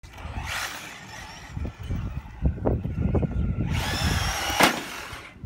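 RC car's electric motor and drivetrain whining as it is throttled: a short burst just under a second in, then a longer, louder rising whine from a little under four seconds in, with a low rumble underneath.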